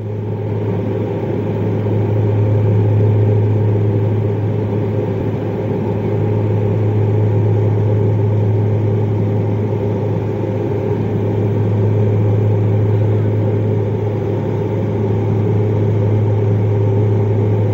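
Propeller aircraft in cruise heard from inside the cabin: the engine and propeller make a loud, steady drone with a strong deep hum.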